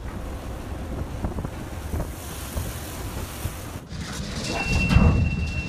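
Storm wind buffeting the microphone on a ship's deck over the rush of a heavy sea. After a break about four seconds in, the gusts grow louder and a thin steady high whistle joins in.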